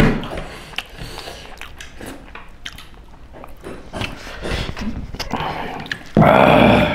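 Eating by hand: soft chewing, lip smacks and small clicks of fingers and food on plates. Near the end comes a loud, drawn-out vocal cry of just under a second.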